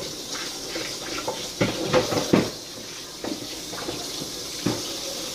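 Kitchen tap running into a sink, turned on just as this begins, with dishes or utensils knocking against the sink several times.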